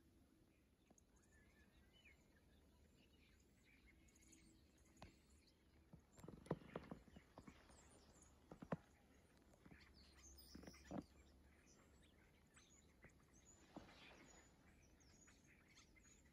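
Near silence with faint, scattered bird chirps. A few brief soft knocks come in the middle and are the loudest sounds.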